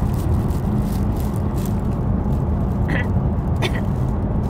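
Steady low rumble of a car's engine and road noise heard inside the cabin, with two short faint sounds about three seconds in.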